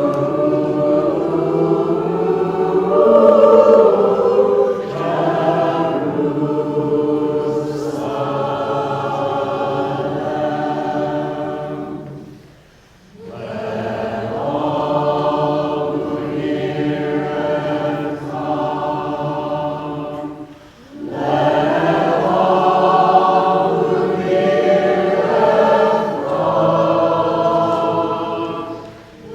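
A small choir singing a song together in long held phrases, with short breaks between phrases about a third and two-thirds of the way through.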